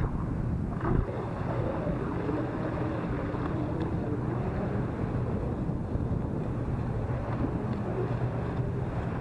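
Proboat Zelos twin RC catamaran's twin brushless motors whining as it runs through choppy water, the pitch rising and falling with throttle and chop, under heavy wind noise on the microphone.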